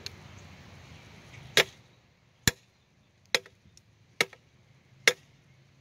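A large survival knife chopping into a painted wooden toilet seat: five sharp strikes about one a second, beginning about a second and a half in.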